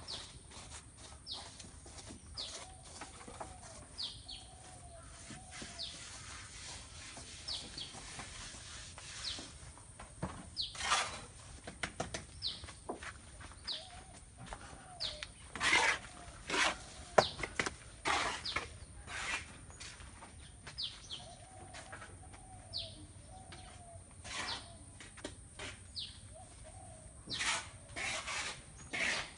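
A bird chirping over and over, short high falling notes about once a second, with fainter lower calls now and then. From about a third of the way in, a run of sharp knocks and clicks, irregular and louder than the birdsong.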